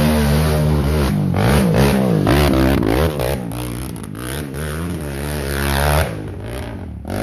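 Enduro dirt bike engine revving, its pitch rising and falling again and again under the throttle, dropping lower and quieter about six seconds in.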